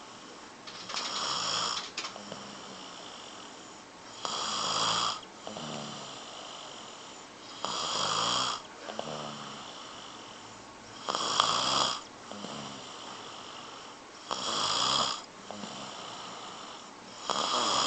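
Snoring in a slow, even rhythm: six loud snores about three and a half seconds apart, with quieter breathing between them.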